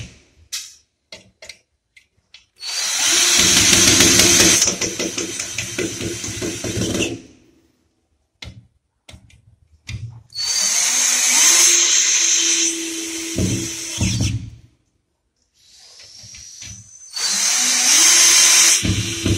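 Cordless drill-driver driving screws through a steel air-conditioner mounting plate into the wall, in three runs of a few seconds each with a steady motor whine. There are a few faint clicks in the pauses between runs.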